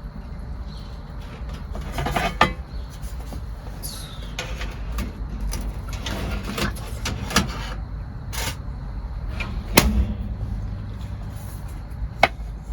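A few sharp knocks and clatters, with lighter clicks and rustles between them, over a steady low rumble.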